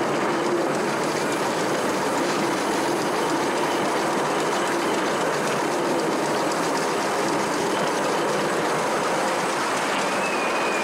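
Miniature ride-on steam train running along its track, heard from a passenger car behind the locomotive: a steady rattle and clatter of small wheels and carriages on the rails, with a faint high squeal near the end.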